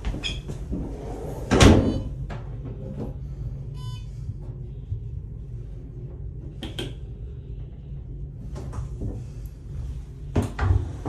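Train toilet cubicle door moving and shutting with a loud knock about two seconds in, a short electronic beep near four seconds, and more clicks and knocks near the end, over a steady low rumble from the moving train.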